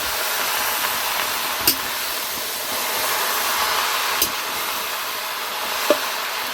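Food frying in a hot pan with a steady sizzling hiss, and three light clicks of a utensil against the pan.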